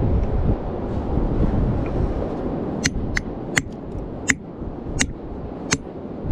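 Hammer striking a steel chisel held against a rock: six sharp taps, the first about three seconds in, then roughly one every two-thirds of a second. Steady wind buffeting the microphone underneath.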